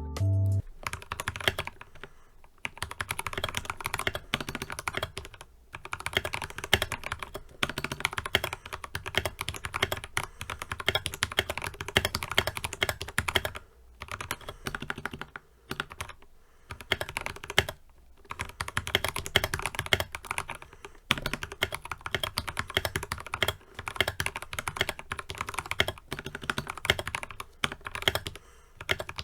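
Typing on a 60% mechanical keyboard with Gateron Brown tactile switches, lubed on the stems, and PBT keycaps: a steady stream of key clicks and clacks in runs, with brief pauses now and then.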